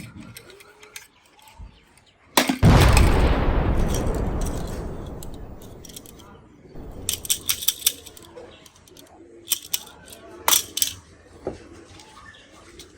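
A loud gunshot-like bang with a long echoing tail that fades over about three seconds, followed by quick runs of sharp shots or clicks, typical of toy guns firing or their added sound effects.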